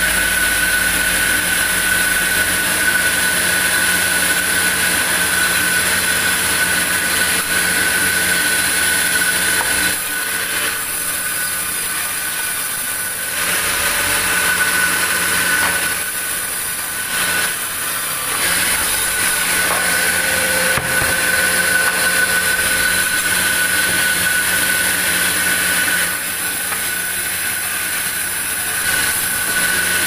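Large vertical band sawmill running steadily, with a continuous high whine. The level dips a little three times.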